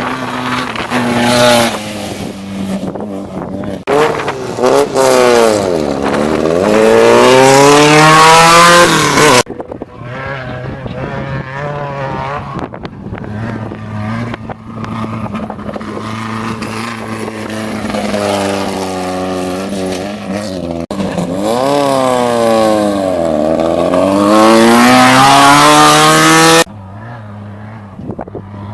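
Off-road race buggies with air-cooled VW-based engines running hard past the course, the engine note dropping and then climbing again as the driver lifts off and gets back on the throttle. Several passes are cut together, each ending abruptly, the loudest near the middle and again near the end.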